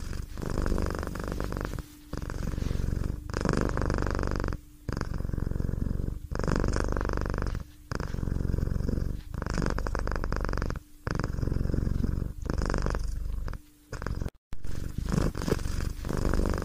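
Domestic cat purring close to the microphone, in an even rhythm of breaths about every second and a half with a short break between each.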